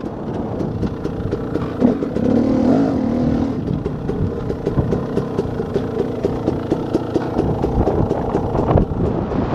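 KTM 300 XC-W two-stroke dirt bike engine at low revs as the bike slows to a stop, with a short blip of the throttle about two seconds in, then settling to an even, rapid beat of firing strokes near idle.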